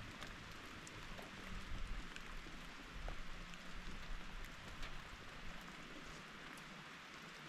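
Steady rain falling, an even hiss with scattered ticks of individual drops. Underneath runs a low rumble that swells twice.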